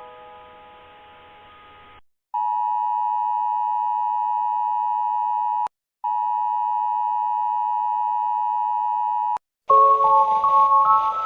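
Steady electronic emergency-alert tone, sounded twice for about three and a half seconds each, with a brief break and a click between. A glockenspiel-like mallet tune comes in near the end.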